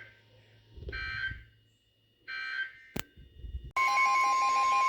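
Emergency Alert System end-of-message data bursts: short two-tone digital squawks about a second and a half apart, ending a weather warning. After a click, a loud steady alert tone with a pulsing beep over it starts about four seconds in.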